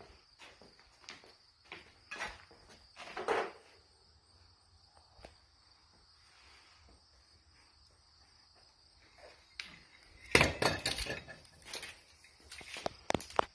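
Scattered clinks and clatters of things being handled, with a loud burst of clattering about ten seconds in, over a steady high insect drone. The siren is not sounding.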